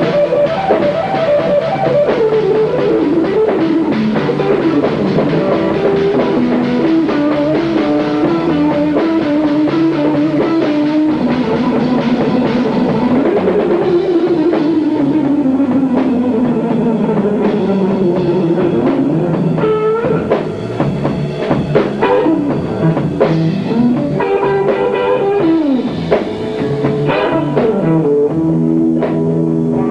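A small band playing live, with guitar and drum kit, and a lead melody line that bends and slides in pitch over a steady beat.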